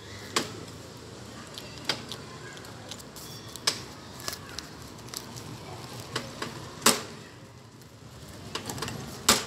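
Bicycle rolling over rough ground, its frame and parts clunking and rattling, with a sharp knock every second or two over a steady low rumble.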